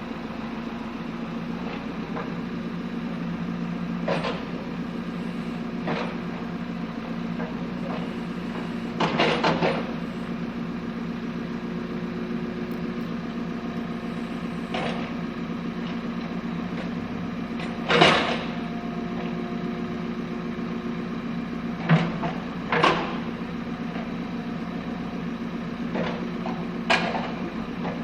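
Backhoe's diesel engine running steadily under load, with scattered sharp metallic clanks and knocks from the working arm and bucket, the loudest about two-thirds of the way through.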